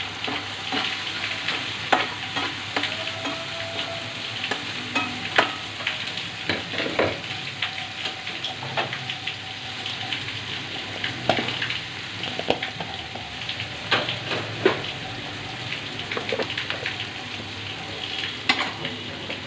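Onions and tomato pieces sizzling in hot oil in a karahi, with a metal spatula scraping and clicking against the pan as they are stirred.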